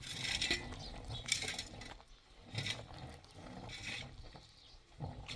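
A metal hand tool scraping and clinking in four short strokes about a second apart, typical of masonry work.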